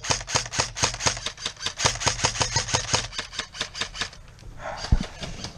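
Airsoft rifle firing a long rapid string of shots, about seven or eight a second, which stops about four seconds in; a short hiss and a single sharp knock follow near the end.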